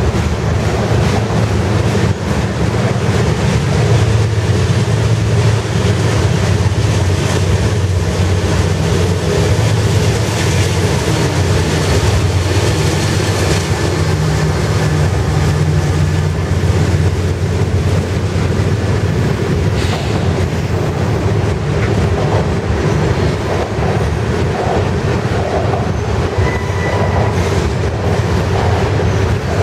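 Freight train of tank cars rolling past at close range, wheels and couplers rumbling and clacking on the rails. Partway through, a GE C44-9W diesel locomotive's engine drone swells in as it goes by, and near the end there is a brief faint wheel squeal.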